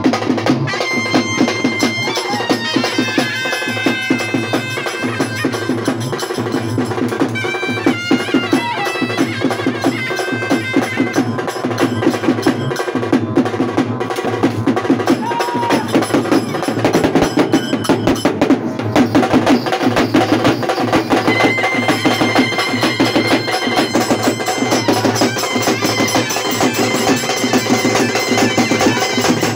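Festival music: a reedy wind instrument plays a melody with long held notes over fast, steady drumming.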